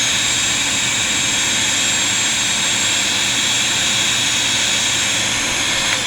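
Hyper Tough 2.0 vacuum cleaner running steadily with a high motor whine. It is switched off at the very end, and its pitch starts to fall as the motor winds down.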